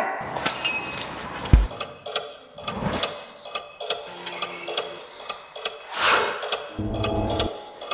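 Fast, uneven ticking and clicking, with a low thump about a second and a half in and a brief whoosh about six seconds in.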